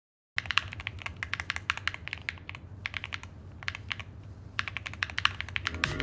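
Typing on a mechanical keyboard fitted with Gateron Quinn heavy tactile switches (pre-lubed, 22 mm dual-stage gold-plated springs): a quick, irregular run of keystroke clicks with two brief lulls.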